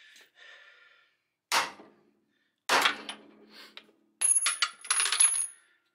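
A hammer drives a pickle fork (ball joint separator) between the spindle and the lower ball joint: several sharp steel-on-steel blows with a bright metallic ring, the last few coming quickly one after another. This is the ball joint being broken loose from the spindle.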